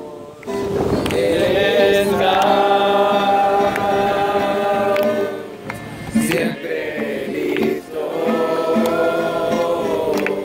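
Music: a choir of voices singing long held notes in phrases a few seconds long, with a slide in pitch between phrases.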